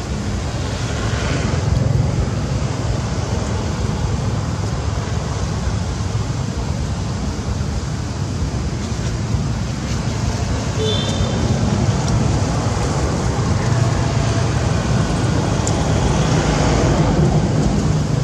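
Steady low outdoor rumble of background noise, with a brief high chirp about eleven seconds in.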